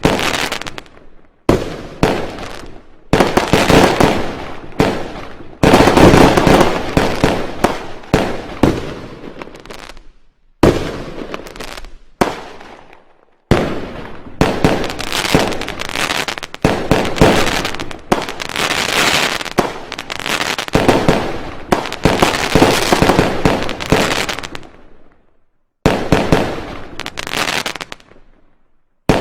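Fireworks going off: runs of rapid bangs and crackling, each loud onset fading off, broken several times by brief gaps of silence.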